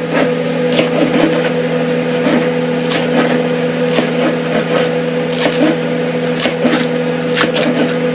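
Knife chopping scallions on a cutting board: sharp strikes at an uneven pace, roughly one a second, over a steady hum.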